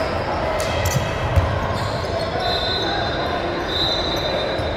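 Basketball bouncing on a hardwood gym floor with a few dull thumps, over a murmur of voices in a large hall. Two high squeaks come in the second half.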